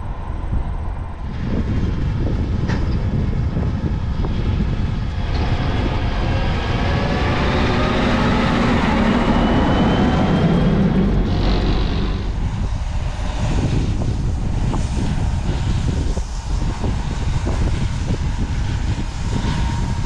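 Fendt Vario MT 943 rubber-track tractor pulling a loaded-road grain cart drives past, its engine growing loudest about eight to eleven seconds in, with the pitch bending as it goes by, then dropping back. Wind buffets the microphone throughout.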